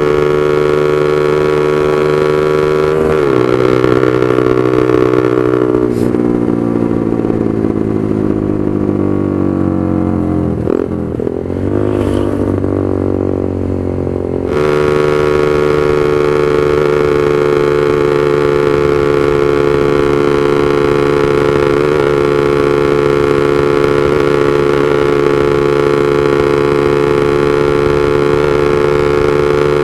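Honda CB150R's single-cylinder engine running through a loud aftermarket Proliner exhaust while riding. The note holds steady, falls for several seconds from about three seconds in as the engine slows, wavers, then jumps back to the steady note about fifteen seconds in and holds.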